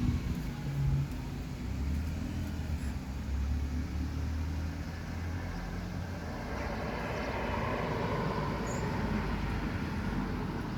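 Heavy wind blowing: a low rumble through the first half, giving way to a broader rushing hiss as a gust builds about seven seconds in.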